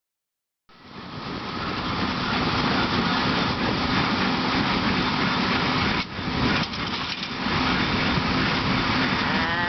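A tractor engine running with a hay baler working behind it, a steady mechanical drone that starts suddenly a little under a second in, with a brief dip about six seconds in.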